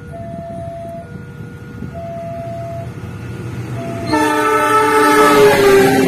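Passenger train approaching on a diesel-electric locomotive. About four seconds in, the locomotive's horn sounds a loud, sustained multi-note blast over the rising rumble of the train. Before that, a quieter two-note tone alternates about once a second.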